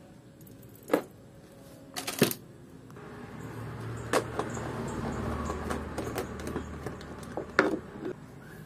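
Sharp clicks and light rattles of a screwdriver working out the front-panel screws of a scooter, metal tool tapping on screw heads and plastic. A low steady rumble swells through the middle and fades near the end.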